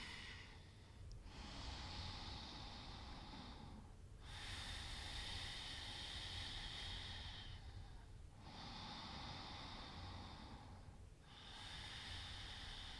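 Slow, deep, audible breaths through the nose, several inhales and exhales of about three seconds each with brief pauses between them.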